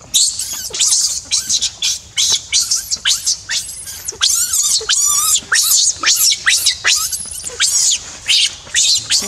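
Baby macaque screaming in distress, a rapid run of shrill, high-pitched cries about three a second, while an adult macaque grabs and pulls it along the ground.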